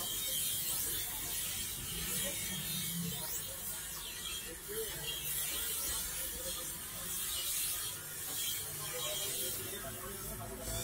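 Steel knife blade ground on a bench grinder's abrasive wheel: a steady high grinding hiss over the running grinder that swells and eases as the blade is drawn along the wheel.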